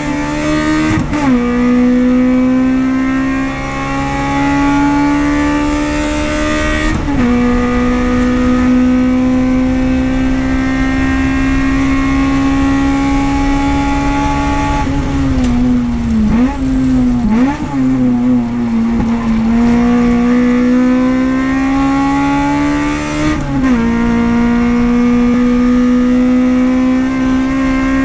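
Honda CRX race car's four-cylinder engine heard from inside the cabin, pulling hard with its pitch climbing steadily and dropping sharply at gear changes about a second in, about seven seconds in and near the end. Midway it falls away under braking, with quick throttle blips on the downshifts, before it pulls again.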